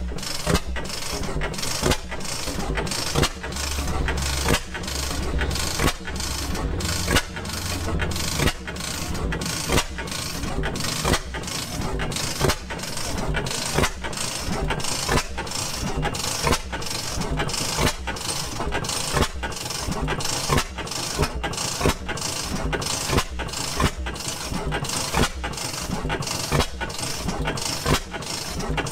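Circa-1926 Reid Type A two-cycle hot-tube-ignition gas engine running steadily, with an even beat of firing strokes somewhat under two a second.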